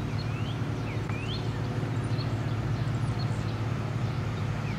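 A bird calling in several short rising whistles over a steady low mechanical hum.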